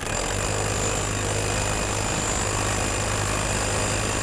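Cordless drill with a socket driving a nut onto a bolt, its motor running steadily without a break after starting abruptly.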